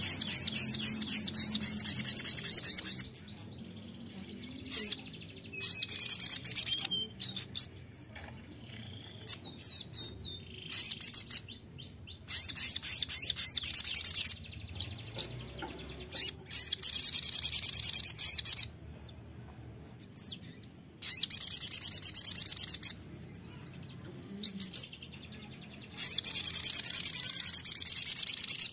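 Male Van Hasselt's sunbird (sogon) singing: about six loud bursts of rapid, high trilling, each two to three seconds long, with softer chirps between them. This is the rapid-fire 'nembak' song that bird keepers play as a lure to set other sogon singing.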